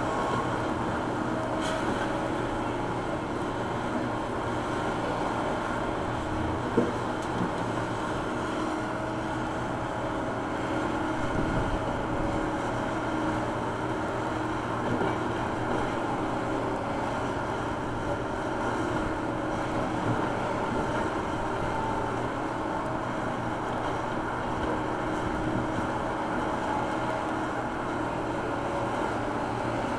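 John Deere backhoe loader's diesel engine running steadily while the machine digs with its rear bucket, with a sharp knock about seven seconds in.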